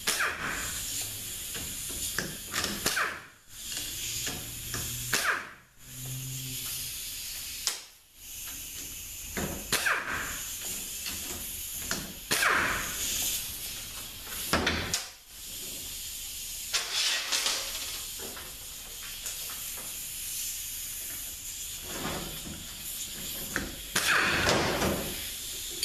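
Metal parts of a 42RLE transmission oil pump being handled and taken apart on a bench: intermittent scrapes, slides and clinks over a steady hiss.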